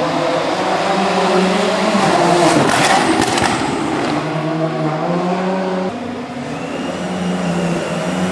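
Rally car engine revving hard under acceleration, the pitch climbing and falling with the gear changes and loudest as the car comes past; the engine note drops suddenly about six seconds in.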